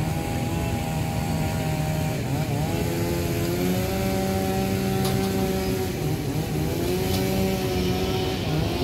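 Two-stroke chainsaw running at high speed, its pitch dipping and climbing back up twice as the throttle eases and opens again while cutting up a fallen tree.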